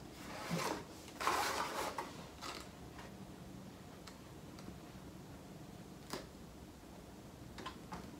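Cardstock rustling and sliding on a cutting mat about a second in as the box piece is turned. After that come a few faint clicks and taps while liquid glue is dabbed onto the paper flaps.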